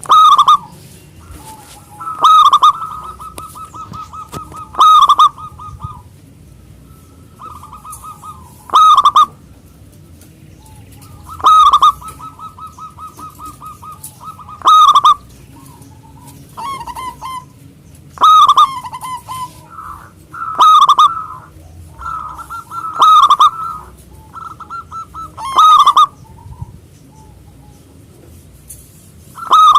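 Zebra dove (perkutut) singing: loud short coos repeated about every two to three seconds, many of them joined by a fast rattling trill.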